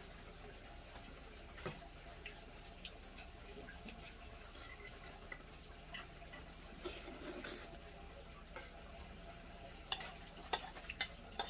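Spoon and chopsticks clinking and scraping against a stainless steel bowl as rice is mixed and eaten, in scattered light clicks, with a quicker run of sharper clinks near the end.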